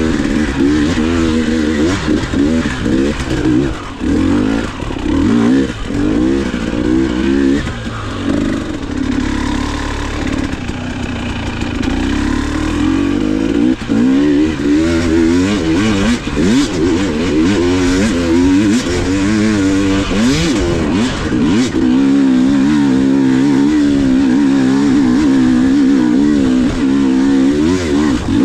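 KTM 300 XC two-stroke dirt bike engine being ridden, its revs rising and falling with the throttle. A few sharp clattering knocks about twenty seconds in, then the engine is held at a steady higher rev to the end.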